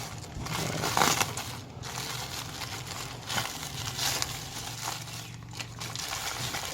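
Packaging being crinkled and torn open, irregular rustling and crackling as the parcel is worked apart.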